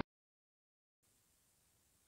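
Near silence: dead digital silence for about a second, then faint room tone.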